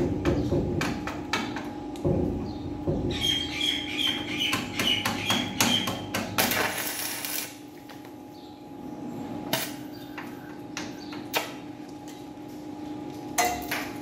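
Stick (arc) welding on a steel door: a run of sharp clicks and crackles as the electrode strikes and breaks the arc, with a longer dense crackle of arc about halfway through, then a few single short cracks near the end. A steady low hum runs underneath.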